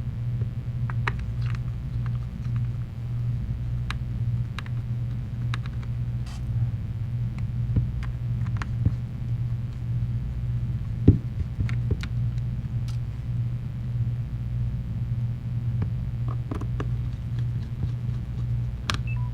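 Small clicks and taps of a Phillips screwdriver and tiny screws as the phone's rear frame is screwed together, one sharper tap about eleven seconds in, over a steady low hum.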